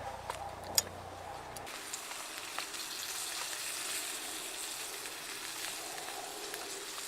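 Sliced sausage frying in butter in a small frying pan over a campfire: a steady sizzle that builds up after the first couple of seconds and then holds. One sharp click comes a little under a second in.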